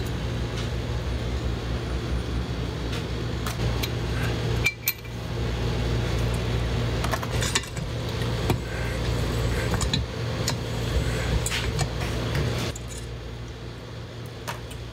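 Scattered metallic clinks and taps from a valve spring compressor and loose valve parts on a Shovelhead cylinder head while the valves are being taken apart, over a steady low machine hum that drops in level near the end.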